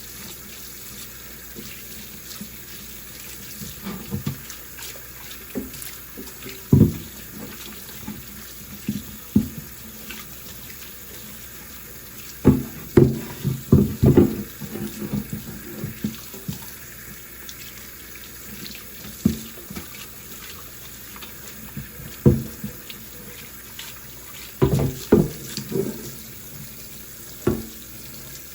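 Tap water running into a sink, with irregular knocks and thuds as a wooden chopping board is handled and rinsed. The knocks come in a few clusters.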